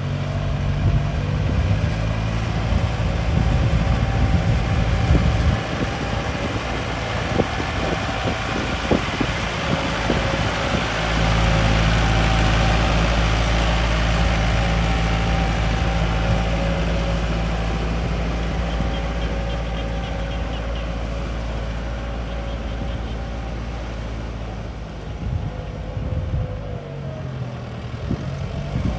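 Yanmar EF725T tractor's diesel engine running steadily in the field, with a faint steady whine above it and a few knocks. About eleven seconds in, the low engine drone grows heavier, and near the end the engine note dips and shifts pitch.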